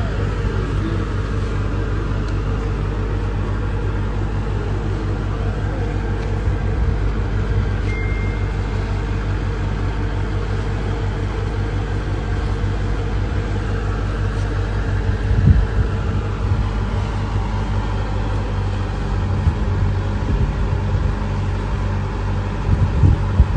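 An engine idling steadily with a low, even rumble, with faint voices under it.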